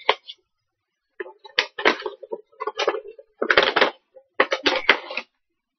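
Blind-box miniature packaging being opened and handled: a run of irregular crinkles, crackles and scrapes that starts about a second in and stops near the end.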